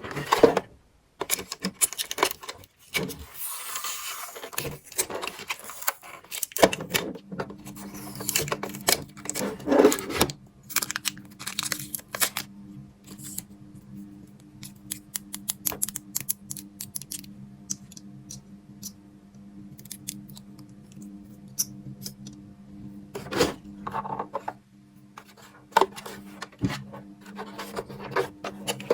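Small plastic toy pieces and packaging being handled: repeated clicks, taps and rustling scrapes. A steady low hum comes in about seven seconds in and keeps on under the clicks.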